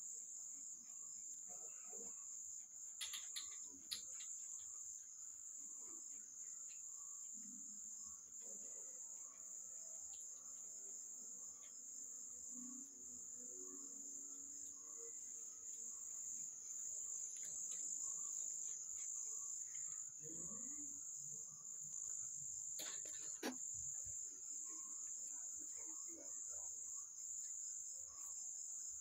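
Crickets chirping in a continuous high, steady trill. A few sharp clicks are heard about three seconds in and again near the end.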